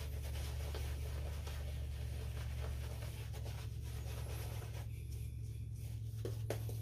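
Synthetic shaving brush working soap lather onto the face: soft, scratchy brushing strokes over a steady low hum.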